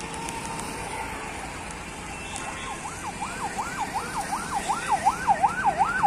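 Vehicle siren wailing fast up and down, nearly three sweeps a second, starting a couple of seconds in and growing louder as it nears.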